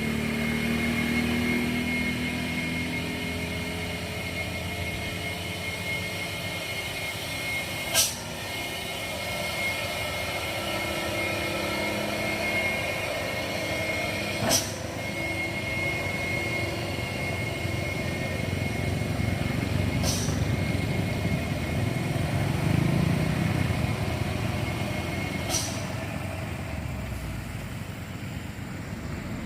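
Heavy truck engine running under load on a steep climb, with a steady high whine. Four sharp clicks come at even intervals of about six seconds, and the whine stops near the end.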